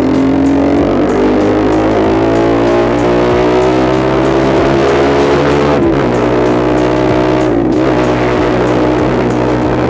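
Honda CBR150R single-cylinder engine through an SC Project straight-pipe muffler, its pitch climbing steadily, then dropping about six seconds in and again near eight seconds as it shifts up. Guitar-led background music plays over it.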